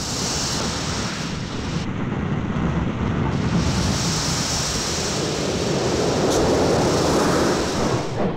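Steady rushing roar of a railway snowplough, pushed at speed by steam locomotives, driving into a deep snowdrift and blasting the snow aside. It grows a little fuller toward the end.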